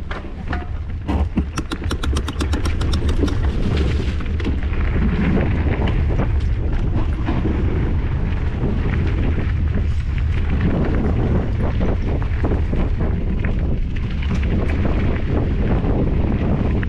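Mountain bike rolling over a dirt trail, heard from a handlebar camera: wind buffeting on the microphone and the rumble and knocks of tyres and frame over bumps. About a second and a half in comes a rapid, even run of ticks, the rear hub's freewheel clicking as the bike coasts.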